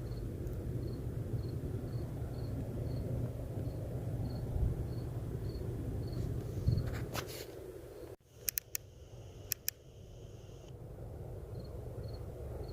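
Night woods sound: an insect chirping faintly and evenly, about three chirps a second, over a low steady rumble. The sound cuts off abruptly about eight seconds in, and a few sharp clicks follow.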